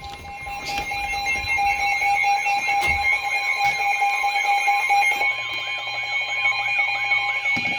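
Emergency alert attention signal: a steady alarm tone sounds together with a repeating warbling alert tone, the alert heralding a new severe thunderstorm warning.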